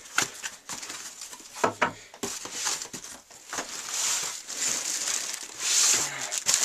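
Packaging crinkling and rustling in irregular bursts with small clicks as items are unwrapped and handled, with louder rustles about four and six seconds in.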